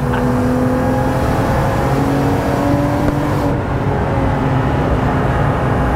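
BMW M135i's turbocharged N55 straight-six pulling hard at high revs, heard from inside the stripped race-car cabin with tyre and road noise beneath it. The engine note holds steady, dipping and rising slightly a few times.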